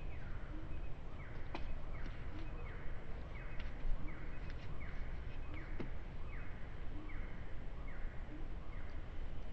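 Outdoor ambience with a short rasping animal call repeating steadily, about four times every three seconds, over a low steady rumble; a few faint clicks.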